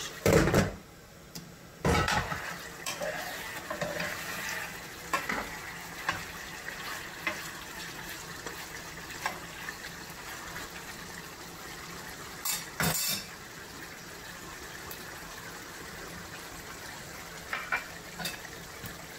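A spoon stirring a pot of simmering braised-oxtail gravy, with scattered clinks and scrapes against the pot. Two louder knocks come in the first two seconds and another about two-thirds of the way through.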